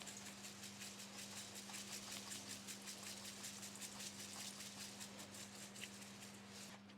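Red chili flakes being shaken out of a shaker jar, a faint, fast pattering rattle that eases off near the end, over a steady low hum.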